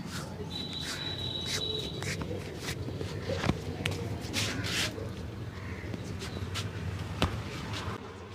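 Hand massage: irregular slaps, taps and rubbing strokes on skin, with two sharp clicks, one about three and a half seconds in and one near the end.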